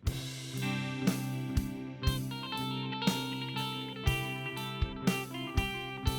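Instrumental background music with a steady beat, starting suddenly at a cut.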